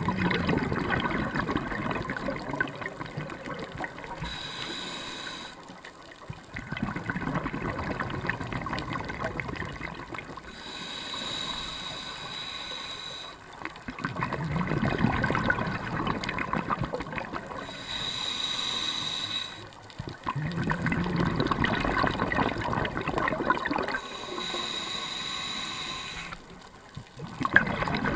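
Scuba diver breathing through a regulator underwater. Gurgling, bubbling exhalations of three to four seconds alternate with shorter hissing inhalations, about four breaths in all.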